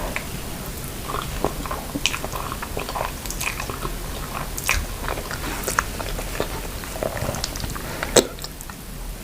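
Close-miked eating sounds: biting and chewing noodles with grilled chicken pieces and vegetables, with irregular wet smacks and small crunches. The loudest is a sharp click about 8 seconds in.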